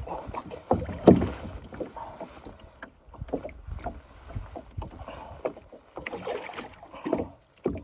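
Water splashing and slapping against the side of a small boat, with irregular knocks on the hull as a netted pike is handled over the side; the sharpest knock comes about a second in.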